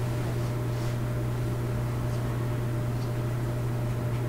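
Steady low electrical hum with an even hiss from the sound system, with a few faint small ticks.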